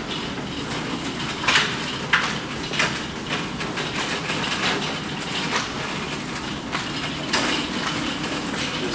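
Hospital stretcher rolling along a hard floor, with a steady rolling noise and its metal side rails and frame clinking and rattling every second or so.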